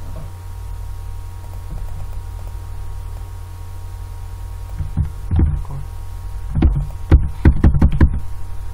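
Computer keyboard keystrokes over a steady low electrical hum: a few keys about five seconds in, then a quicker run of keystrokes near the end, which is the loudest part.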